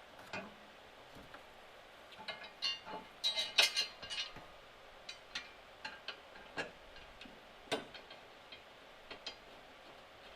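Irregular metallic clicks and clinks of hand tools and bolt hardware as a bolt is started into the Mustang's rear subframe, with a short run of quick clicks about three to four seconds in.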